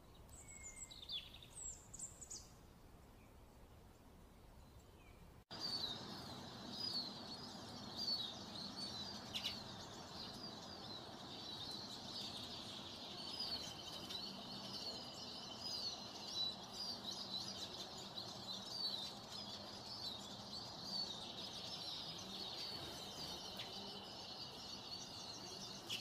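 Bird calls: a few thin, high falling calls from Eurasian bullfinches, including a begging fledgling, in the first two seconds. From about five seconds in comes a dense, continuous chatter of high chirps from redpolls, with a trill underneath through much of it.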